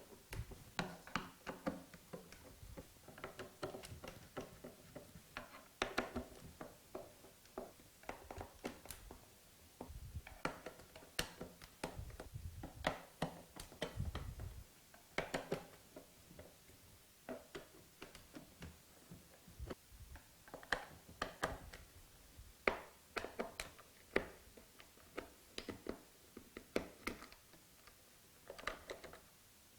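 Screws being undone with a screwdriver from the plastic base plate of a Hoover Globe upright vacuum cleaner: irregular clicks, taps and small knocks of the driver, screws and handling, with a dull thump about fourteen seconds in.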